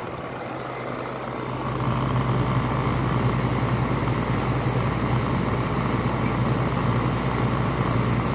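LG 5,000 BTU window air conditioner running with its fan on high. About one and a half seconds in the compressor kicks on, adding a deep steady hum, and the unit runs louder from then on.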